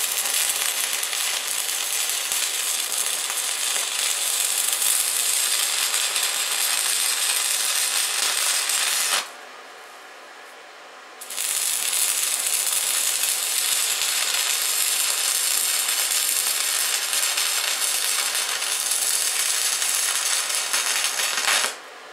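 Stick (MMA) arc welding with a thin coated electrode at about 71 amps: the steady crackle and sizzle of the arc in two runs of about nine and ten seconds, broken off for about two seconds in between, and stopping just before the end.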